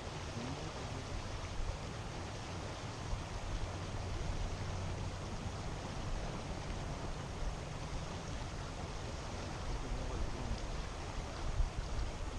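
Steady rushing of a flowing river, with a low rumble underneath.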